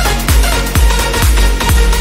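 Electronic dance music with a steady, driving kick drum, about two beats a second, under sustained synth layers.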